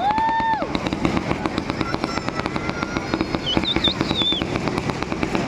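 A rapid, continuous string of firecracker bangs, about eight to ten a second. A short whistling tone sounds near the start.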